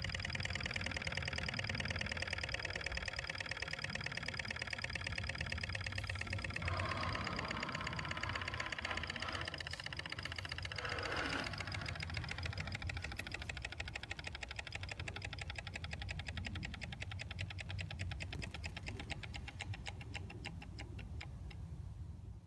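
Wiggers STIWI 2 Stirling hot-air engine running steadily: rapid, even mechanical ticking from its piston, crank and linkage as the flywheel turns, over a low hum.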